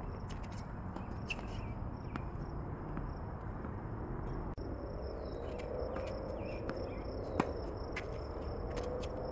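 Outdoor tennis court ambience: a steady high insect trill over low background noise, with scattered light taps of footsteps and ball bounces. About seven seconds in comes one sharp crack of a racket striking a tennis ball.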